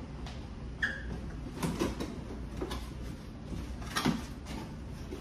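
Cardboard box being handled and opened: a few light knocks and scrapes of cardboard spread through, with a brief squeak about a second in.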